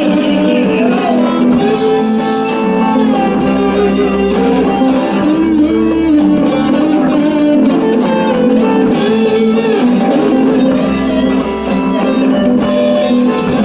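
Music with guitar playing: strummed and plucked guitar over a steady beat.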